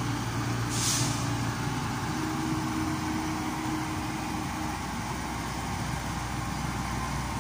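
Komatsu PC70-8 hydraulic excavator's diesel engine running steadily as the upper structure swings with a concrete pipe on the bucket. There is a short hiss about a second in.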